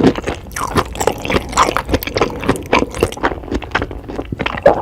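Close-miked wet eating sounds: a rapid, irregular run of slurps and smacks of food in the mouth.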